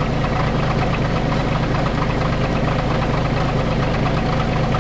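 Trencher engine running steadily at a constant speed.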